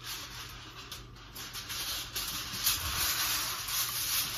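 Aluminium foil rustling and crinkling as a sheet is pulled off a Reynolds Wrap roll, an uneven hiss that grows louder about halfway through.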